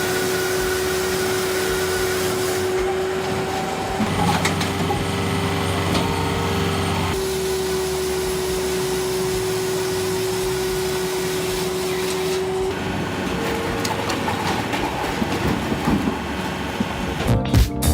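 Firewood saw-splitter running: a steady mechanical hum with a held whine, its sound shifting abruptly a few times. Music with a beat comes in near the end.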